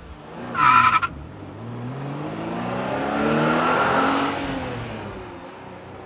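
Racing-car sound effect: a short, loud tyre screech about half a second in, then an engine revving that swells and fades away as if driving past.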